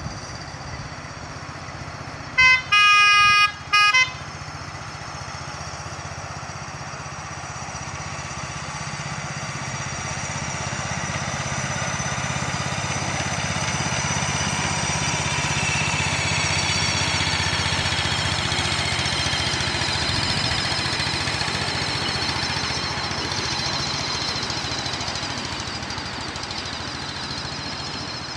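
Miniature railway locomotive's horn sounding three short toots, then the loco's engine running steadily as the train passes, loudest midway and fading toward the end.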